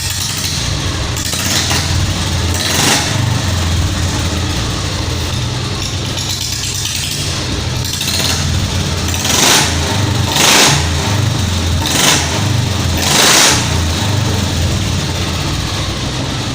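Royal Enfield Bullet Standard 350's single-cylinder engine running with a steady low thump, its throttle blipped about six times in short revs.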